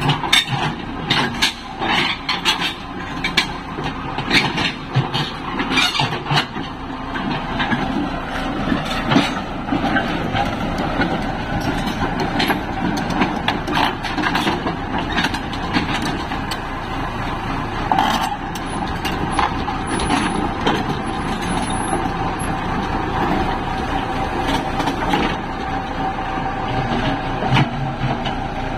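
Diesel engine of a compact crawler excavator running as the machine is driven and manoeuvred, with repeated sharp metallic clanks and knocks from its steel tracks and ramp, most frequent in the first ten seconds or so, then a steadier engine sound.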